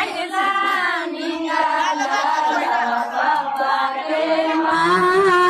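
Women singing a traditional wedding folk song together, several voices in one melody.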